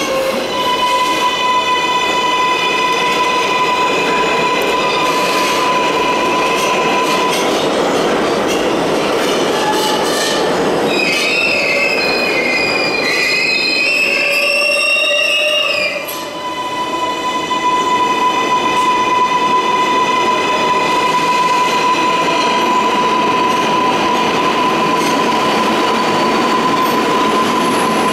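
R188 subway train running slowly along the platform, with a steady high-pitched whine. About halfway through, its wheels squeal for several seconds in wavering high tones, then the steady whine returns.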